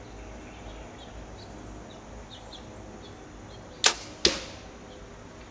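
Bear Cruzer G2 compound bow shot: a sharp crack of the string at release, then a second sharp thud a fraction of a second later as the arrow strikes the target.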